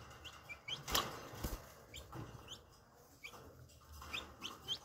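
Green junglefowl chicks peeping in short, rising cheeps, over and over, with wings fluttering as they scramble in a wire cage. Two sharp knocks sound about a second in.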